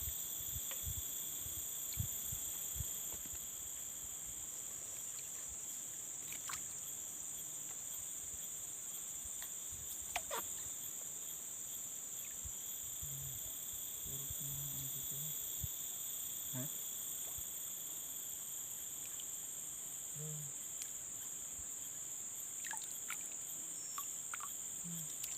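Steady outdoor insect chorus, a continuous shrill trill in several high-pitched bands, with a few faint clicks and short low hums.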